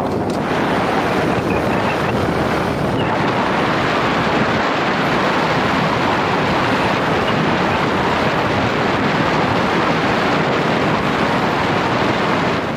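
Steady rushing wind noise on the microphone of a moving motorcycle, with the motorcycle's engine running underneath.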